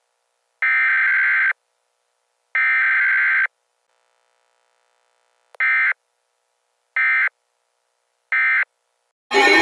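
Emergency Alert System SAME digital data bursts, the harsh buzzing tones that open and close an EAS alert. Two bursts of about a second each, a second apart, then after a pause three much shorter bursts about 1.4 seconds apart, like the end-of-message code.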